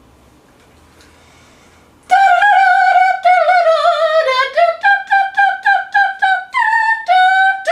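A woman's solo singing voice, wordless, after about two seconds of quiet: a high wavering held note, then a run of short detached notes stepping up and down.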